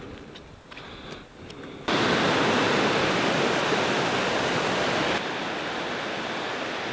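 Steady rushing of a fast-flowing river that starts abruptly about two seconds in and drops a little in level near five seconds. Before it, a quieter stretch with a few faint ticks.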